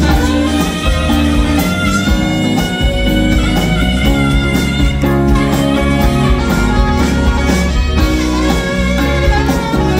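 Live soft-rock band playing an instrumental passage, with no singing. Drum kit, bass guitar, acoustic and electric guitars, keyboard and saxophone play at a steady full level.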